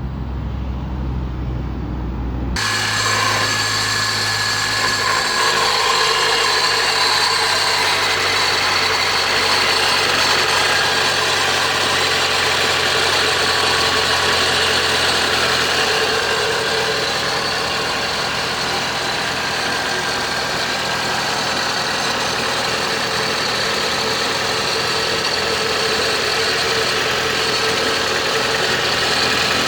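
Nissan Tiida engine idling after a cold start, with a steady high-pitched whine and grinding noise from a failing alternator bearing. The noise comes in loud about three seconds in.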